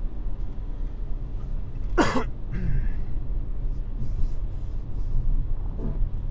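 Steady engine and road noise inside a moving car, with one short cough about two seconds in.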